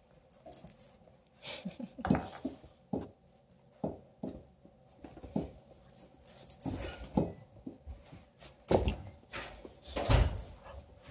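Bluetick Coonhound puppies scuffling and wrestling on a blanket over a wooden floor: irregular thumps and scrabbling, loudest about two, nine and ten seconds in.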